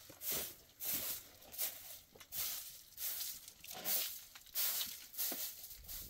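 Short hand broom sweeping an earthen floor: a series of brisk scratchy swishes, about one stroke every 0.7 seconds.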